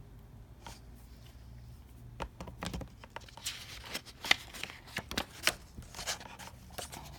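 Paper rustling with soft clicks and taps as the pages of a picture book are turned, busier after about two seconds.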